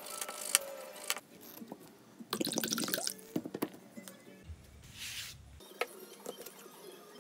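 Background music with a short pour of liquid into a metal mug about two seconds in, followed by a few light knocks of objects on the bench.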